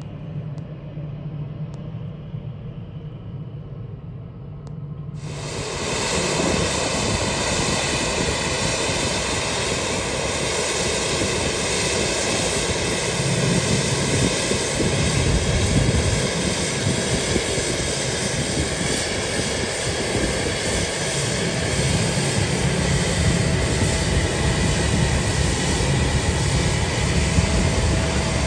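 Jet airliner engines. First a quieter steady low hum from a taxiing Airbus A320, then, after an abrupt change about five seconds in, a loud steady jet roar from a Boeing 777 passing on final approach.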